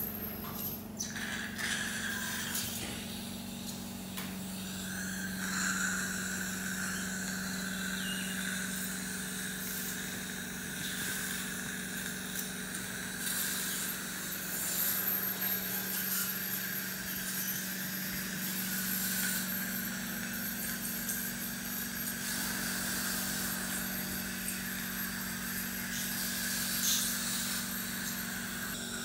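Dental surgical equipment sounding a steady high-pitched tone over a low steady hum during gum surgery. The tone sounds briefly about a second in, then holds from about five seconds in, with small clicks of instruments now and then.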